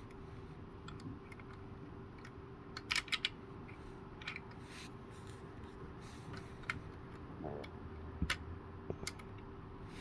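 Small sharp plastic clicks and taps of Lego pieces being handled: a quick run of three about three seconds in, then a few single clicks, over a faint steady hum.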